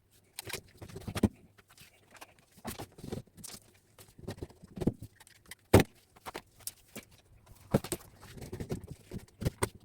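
Scrap copper wire being handled and stripped by hand: scattered, irregular clicks and light knocks with some rustling, and one sharper knock about six seconds in.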